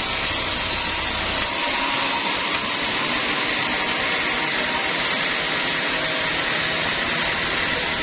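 Large sawmill band saw running with a steady, loud hissing whir. A low hum under it drops away about one and a half seconds in and returns near the end.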